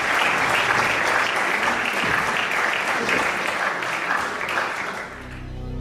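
Audience applauding, dying away about five seconds in as music starts.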